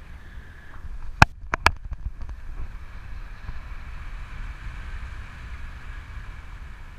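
Wind rushing over a camera microphone in paragliding flight: a steady low rumble with an airy hiss. A little over a second in come three sharp clicks close together.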